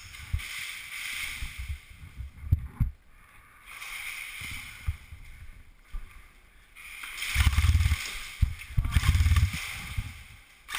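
Rustling and deep bumping of gear and clothing against a body-worn camera as an airsoft player moves through the building, in surges of swishing noise, with the heaviest thumps in the last few seconds.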